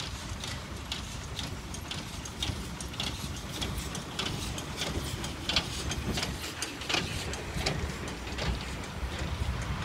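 Small Hanomag 0-4-0T steam tank locomotive running slowly past, with a steady beat of exhaust and running gear about twice a second over a low rumble of its wheels on the track. It is loudest in the middle as it passes close.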